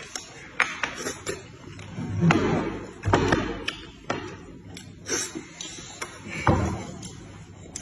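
Chopsticks clicking and tapping against a bowl of noodles, with a few louder bursts of eating and handling noise.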